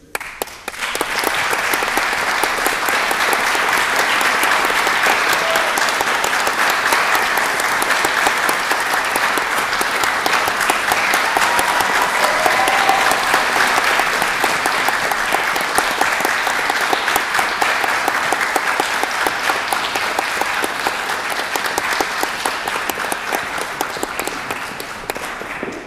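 Audience applauding: dense, steady clapping that starts suddenly and tapers off slightly near the end.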